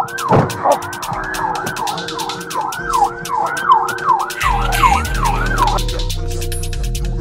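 Police car siren sweeping rapidly up and down, a little under twice a second, cutting off about six seconds in. Under it runs a drill beat with hi-hats, and a heavy bass comes in about four and a half seconds in.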